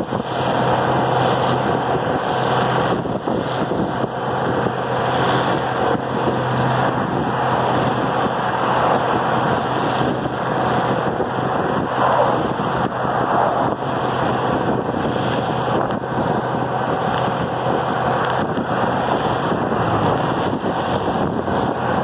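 Farmall diesel tractor engine running steadily on the road, mixed with heavy wind noise on the microphone of a following car.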